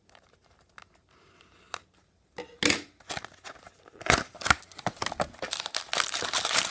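A sealed box of trading-card packs being torn open, its wrapping tearing and crinkling. After a couple of seconds of faint handling clicks the tearing starts, and it grows louder and busier near the end.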